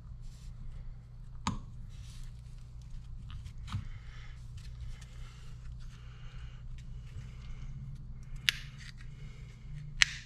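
Hands handling small parts and tools at a workbench: scattered light clicks and soft rustling, with two sharper clicks near the end, over a steady low hum.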